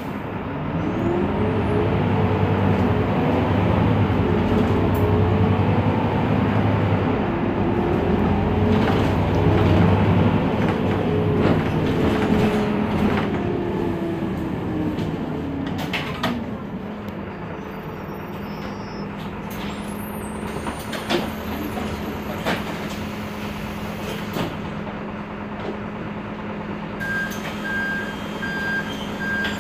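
Heuliez GX 327 city bus engine pulling away, its pitch rising and falling through the gear changes for about the first fifteen seconds, then settling to a steady idle. A few short sharp clicks follow, and near the end an electronic beep repeats at even intervals.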